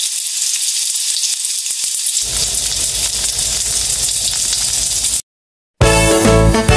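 Fried rice sizzling in a frying pan, a steady hiss with small crackles that gets fuller about two seconds in and cuts off about five seconds in. After a brief silence, upbeat music starts near the end.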